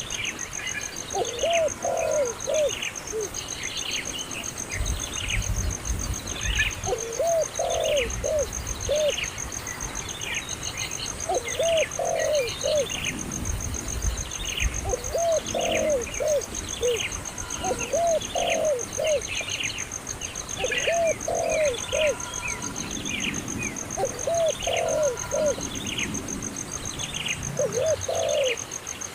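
A dove cooing in repeated short phrases of three or four notes, every few seconds, over steady high chirping from smaller birds.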